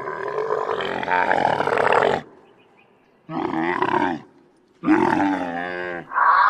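Three roars from large wild animals, separated by short gaps: a long one of about two seconds, then two shorter ones that fall in pitch. Music begins just before the end.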